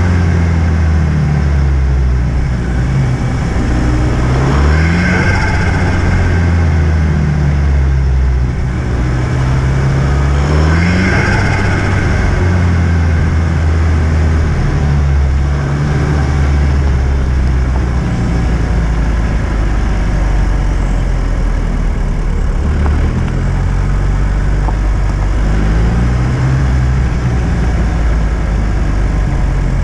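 Car engine running with a steady low drone, rising in revs about four seconds in and again about ten seconds in, then settling back to a steady run with another brief rise near the end.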